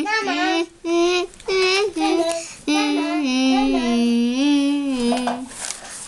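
A young boy singing alone with no accompaniment. He sings a few short phrases, then one long phrase of held notes that ends about half a second before the end.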